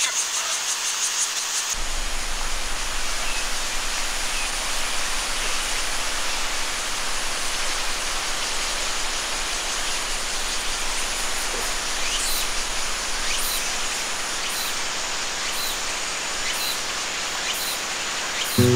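Steady rushing of river water, with faint short high chirps now and then. In the first two seconds there is a different sound, a shrill high hiss that pulses quickly.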